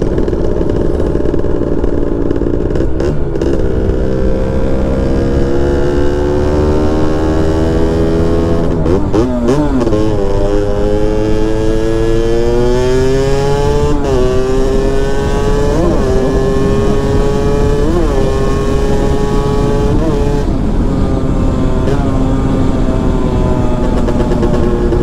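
Honda Nova Dash 125 single-cylinder two-stroke engine through a DBS expansion-chamber exhaust, under way on the road. The engine note rises slowly for about nine seconds, dips and climbs again, then holds with short blips every couple of seconds.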